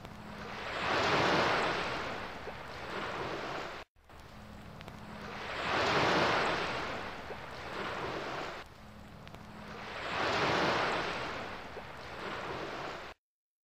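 Sound effect of ocean surf: three waves that each swell up and wash back over about four seconds. The recording cuts out abruptly twice, as at the loop points of a repeated clip.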